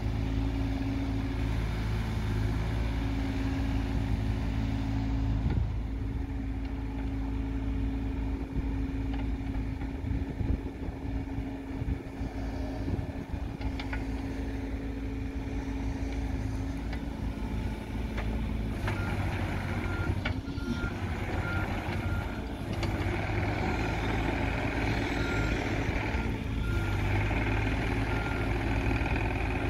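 2017 John Deere 30G mini excavator's 23 hp diesel engine running while the boom and arm are worked, its note shifting as the hydraulic load changes. In the second half a backup alarm beeps repeatedly.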